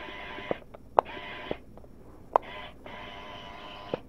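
Lalaloopsy RC toy scooter's small electric motor and plastic gears whirring in four short runs, each a half second to a second long, with a sharp click where runs start or stop.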